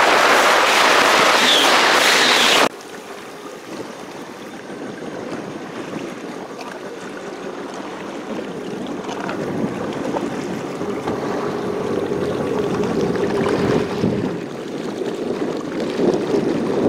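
Heavy wind rumble on the microphone, cut off suddenly a few seconds in, then a watercraft engine with a steady hum that slowly grows louder, with water and wind noise around it.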